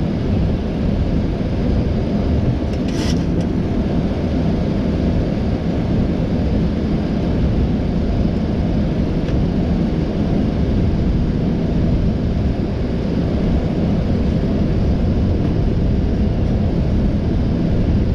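Steady flight-deck noise of a Boeing 737 MAX on final approach: an even rumble of rushing air and engines. One short click sounds about three seconds in.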